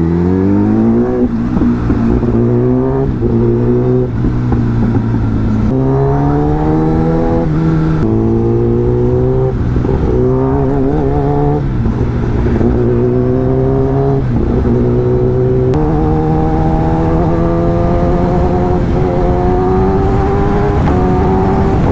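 Sport bike's engine under way, its pitch climbing, dropping back and climbing again many times as the rider opens and closes the throttle and works through the gears, then a longer steady climb near the end.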